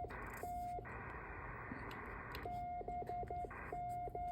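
Morse code sent at 10 words per minute: a steady beep keyed on and off in dots and dashes. A stretch of hiss fills the long gap between words, starting about a second in.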